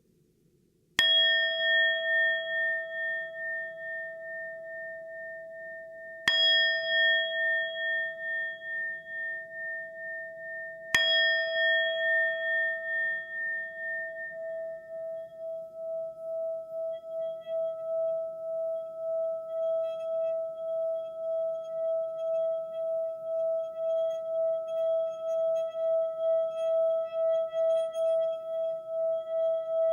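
Singing bowl struck three times, about five seconds apart, each strike ringing on and slowly dying away. From about fourteen seconds in, a steady wavering tone swells and holds.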